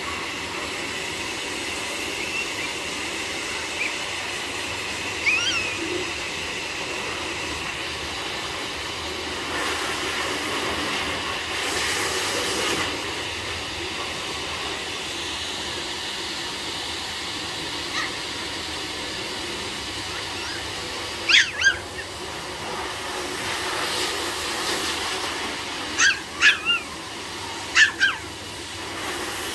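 Toy Pomeranian puppies giving short, high-pitched yips now and then: one early, a pair about two-thirds of the way through and three in quick succession near the end, over a steady hiss.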